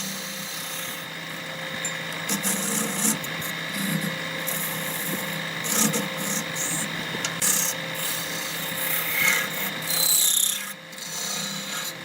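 Wood lathe running with a steady machine hum while the spinning wood is scraped in irregular, uneven strokes.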